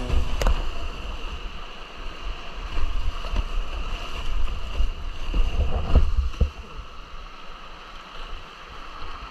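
Flowing river water with wind buffeting the microphone in low gusty rumbles, and a few sharp splashes or knocks midway; it quietens somewhat in the last few seconds.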